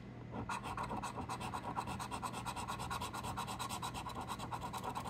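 A coin scratching the coating off a scratch-off lottery ticket in rapid, even back-and-forth strokes, starting about a third of a second in.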